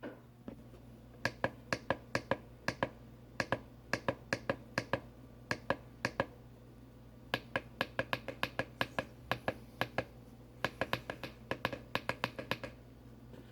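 Plastic push buttons on a radio alarm clock clicking as they are pressed over and over to set the hours and minutes. The presses come in four quick runs of several clicks each, a few clicks a second, with short pauses between the runs.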